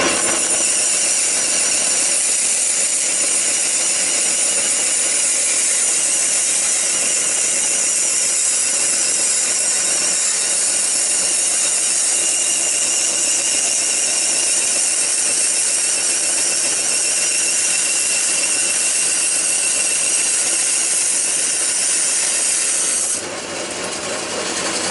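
Table saw blade cutting through an aluminium plate: a loud, steady, high-pitched metallic screech. Near the end the cut finishes and the sound drops to the saw running without load.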